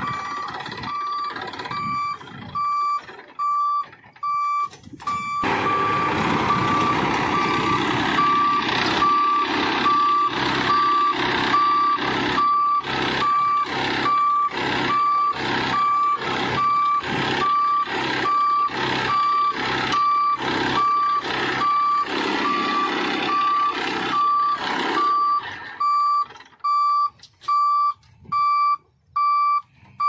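A vehicle reversing alarm beeping in an even, steady rhythm, about one and a half beeps a second, with a tractor's engine running underneath. The engine noise swells about five seconds in and fades out near the end, leaving the beeps alone.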